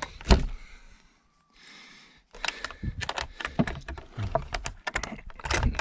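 Irregular clicks, knocks and light rattles of small hard objects being handled, dropping out briefly about a second in, then coming thick and fast.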